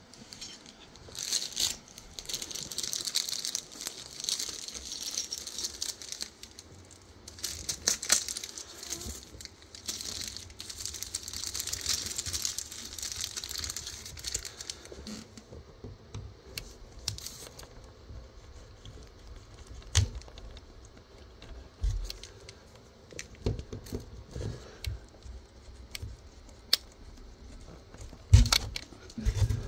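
Crinkling and rustling of something being handled for about the first half, then scattered sharp taps and low knocks, the loudest near the end.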